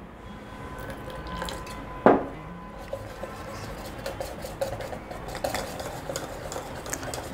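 Wire whisk beating thick gram-flour batter in a stainless steel bowl, the wires clicking and scraping quickly against the metal sides as the batter is whisked smooth. A single knock sounds about two seconds in.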